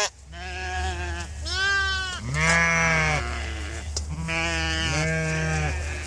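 Sheep bleating: five bleats in quick succession, the last two overlapping, over a steady low hum.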